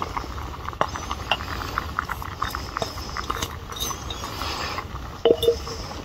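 Clicks and taps of fresh vegetables being tipped into a metal mug of noodles and stirred, with two louder metallic clinks about five seconds in, over a steady low rumble.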